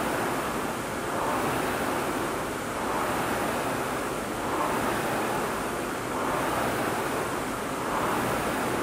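Air rowing machine's fan flywheel whooshing as it is rowed at a steady pace, the rushing noise swelling with each pull about every one and a half to two seconds.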